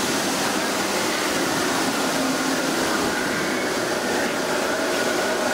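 Steady rushing wind effect from a dark-ride desert scene's show audio, with faint whistling tones held over it.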